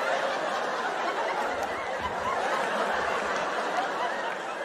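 Comedy-show audience laughing together, many voices at once in a steady wave that eases slightly near the end.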